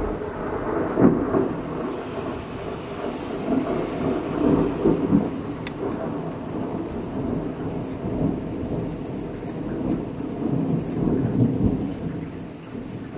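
Thunder rumbling for over ten seconds: it starts suddenly, swells several times, and eases off near the end. Rain falls underneath.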